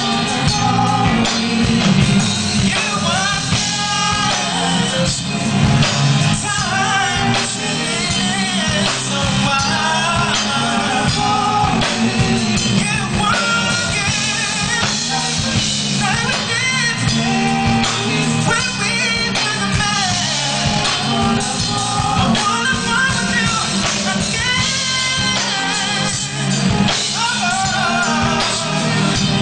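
Male R&B singer singing live over a band of drums, bass and electric guitar. The voice holds long, bending notes with wavering runs, in a soul ballad.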